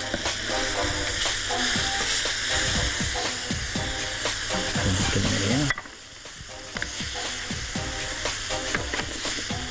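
Calamari sizzling on a hot grill plate while a spatula scrapes and turns the pieces. The sizzle drops out suddenly a little past halfway, then comes back quieter.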